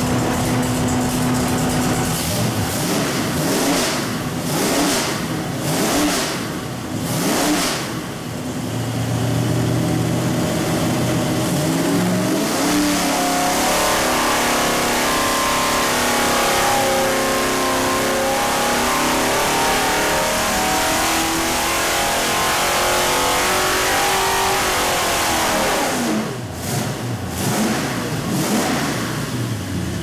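Carbureted 540 cubic-inch big-block V8 running on an engine dyno: several quick revs up and down, a few seconds of steady running, then a long run up to high revs held for about twelve seconds, a dyno pull. The revs drop back near the end, followed by more quick blips of the throttle.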